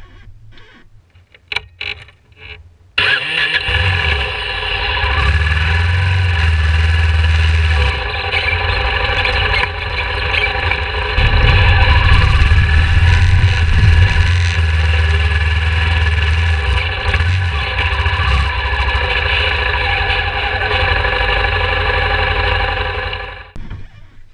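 Yamaha Ténéré 3YF's single-cylinder four-stroke engine starting up about three seconds in, then running with the revs rising and falling as the motorcycle is ridden slowly along a rough forest trail; it cuts out near the end.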